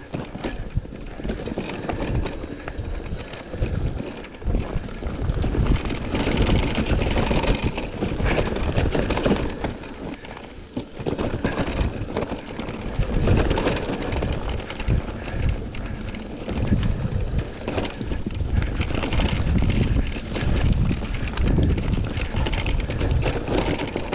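Electric mountain bike riding down a rough trail: wind buffeting the microphone, with the bike rattling and knocking over bumps all the way through.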